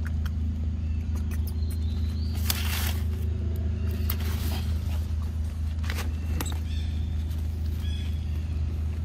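A steady low mechanical hum, like a distant motor running, with scattered rustling and clicking, a brief louder rustle about two and a half seconds in, and a few short high chirps.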